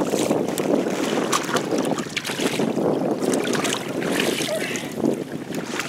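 Wind buffeting the microphone over choppy water, with splashing from a hooked smallmouth bass thrashing at the surface beside the boat as it is grabbed by hand.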